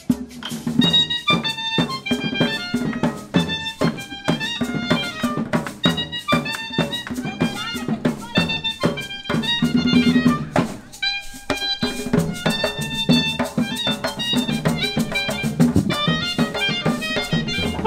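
Lively Colombian folk dance music: hand drums beating a fast, even rhythm under a melody instrument, with a short break in the middle.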